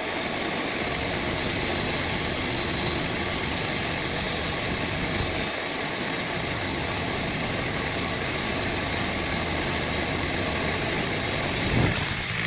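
Wood-Mizer band sawmill running steadily, its engine and blade making an even, loud hiss.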